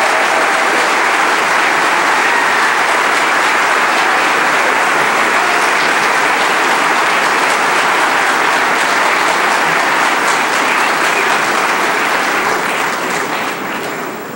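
Audience applauding steadily, thinning out over the last couple of seconds.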